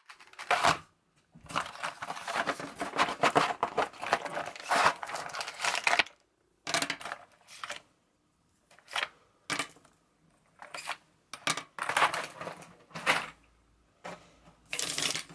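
Plastic felt-tip markers being handled and set down on paper: a few seconds of dense rustling and clicking, then separate short clicks and clatters about a second apart as each marker is laid down.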